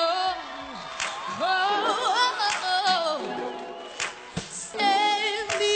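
A young woman singing solo, a slow R&B melody with vibrato on the held notes and quick runs sliding up and down in pitch.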